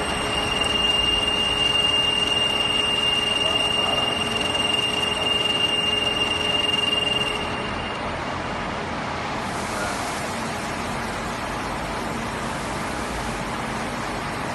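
Zayer CNC milling machine cutting metal under coolant: a steady high-pitched whine over broad machining noise, which stops about seven seconds in. The machine then runs more quietly, with a steady hiss of coolant spraying through the spindle and drill.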